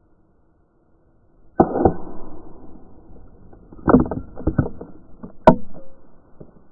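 Molotov cocktail going up in a fireball: a sudden loud burst, then crackling flames, a second cluster of loud bursts about two seconds later, and a sharp crack near the end.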